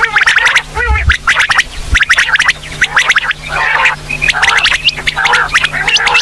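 Female quail calling: a rapid, dense stream of short sharp chirps and clicking notes, some flicking upward, over a faint steady low hum.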